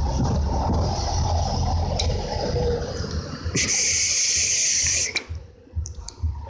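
An electronic cigarette drawn on close to the microphone: a hiss that starts sharply about three and a half seconds in and cuts off a second and a half later, over a steady low rumble of wind and handling on the microphone.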